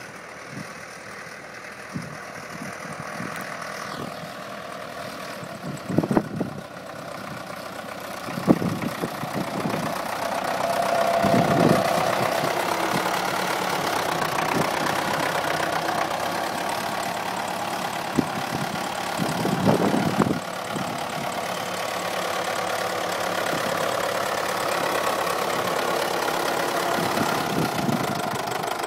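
Fordson diesel tractor engine running as the tractor drives up. It grows louder over the first ten seconds or so, then runs steadily close by. A few dull thumps stand out along the way.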